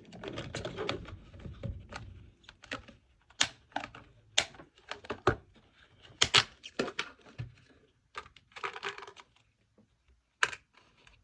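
Glossy slime being squished, poked and stretched by hand, making irregular sticky clicks, pops and crackles with short stretches of squelching.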